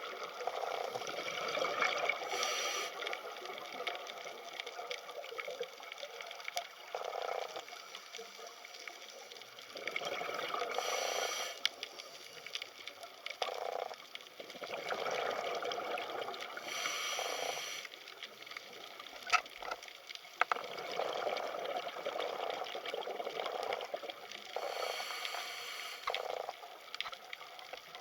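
Underwater water noise: a steady wash with a louder bubbling burst every few seconds.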